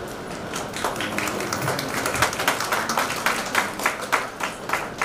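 Audience clapping: scattered claps that thicken into steady applause after about a second.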